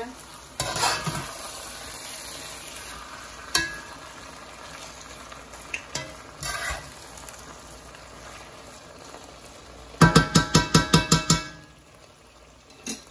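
Spaghetti sizzling as it fries in a pot, the bottom left to brown, with a spoon stirring and scraping through it now and then. About ten seconds in comes a quick run of about a dozen loud metal clinks, the spoon knocking against the pot.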